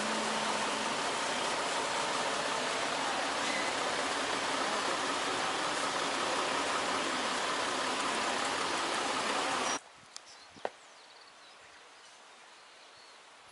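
Steady hiss of traffic and buses at a city bus terminal, which cuts off abruptly about ten seconds in to a much quieter open-air hush with a couple of faint clicks.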